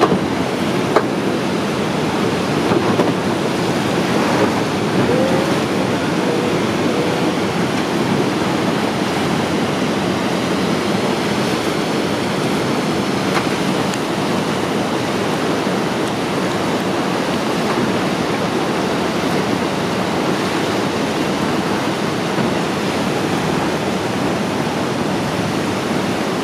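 Steady rushing of the Rhine Falls and the churning white water in the basin below it, with a couple of faint clicks in the first second.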